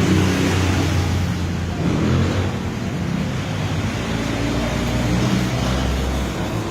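A motor running steadily, a low droning hum with a wash of noise over it.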